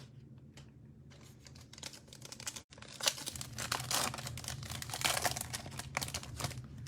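Plastic foil wrapper of a Prizm basketball card pack being torn open and crinkled in the hands, starting softly about two seconds in and growing louder and busier from about three seconds on.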